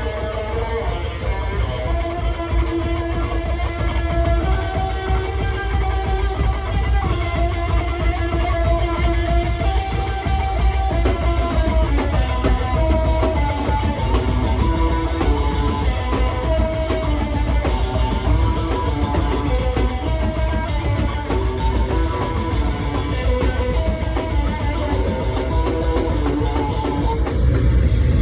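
Live noise-rock: an effects-laden bass guitar plays a fast, stepping riff high up the neck over dense, rapid drumming. Near the end the low end swells louder.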